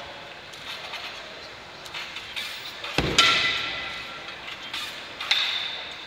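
High bar apparatus clanking under a gymnast's swings. A sharp metallic knock about three seconds in is followed by about a second of ringing, and a second, smaller clank with ringing comes near the end.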